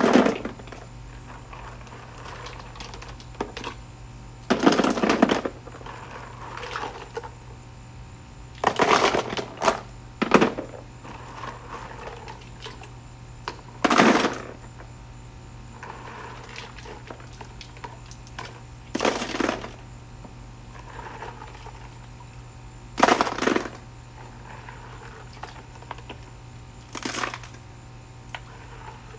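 Intermittent handling noises from setting up a solar fountain: short rustles, knocks and clatters of parts, about eight separate bursts, over a steady low hum.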